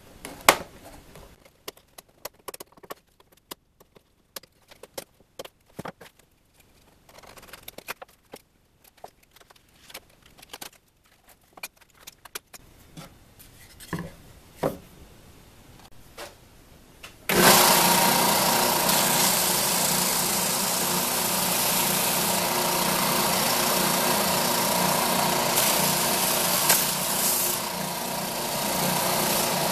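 Scattered light clicks and scrapes of a utility knife trimming thin mylar plastic sheet on a wooden workpiece. About halfway through, a benchtop oscillating belt sander switches on suddenly and runs with a steady motor hum.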